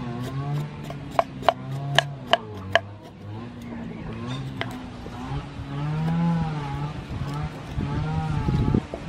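A spoon scraping the skin off fresh ginger root on a wooden chopping board, with about five sharp scraping strokes in the first few seconds and some knocking on the board near the end. Under it runs a steady droning hum that wavers slowly in pitch.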